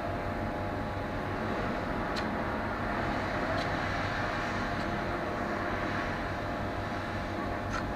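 Steady mechanical hum with a low drone and a few steady tones, broken by a handful of faint light clicks.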